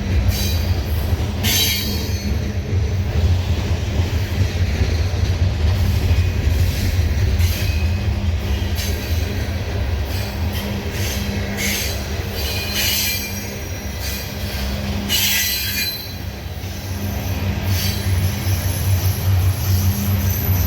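Loaded coal hopper cars of a freight train rolling past, a steady heavy rumble of steel wheels on rail. Several short high-pitched wheel squeals rise out of it, near the start and again around two-thirds of the way through.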